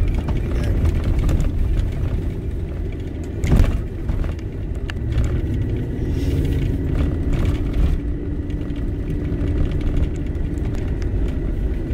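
Inside-cabin noise of a Nissan Y62 Patrol driving slowly on a rough dirt track: a steady low rumble from the V8 and tyres, with light rattles and one loud knock about three and a half seconds in.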